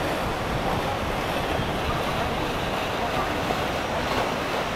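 Steady wash of passing motorboats, engine noise and water churned by their wakes, with wind buffeting the microphone.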